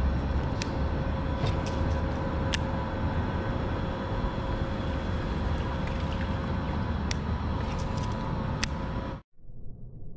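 A steady machine hum over a low rumbling noise, with a few sharp clicks scattered through it; it cuts off suddenly near the end.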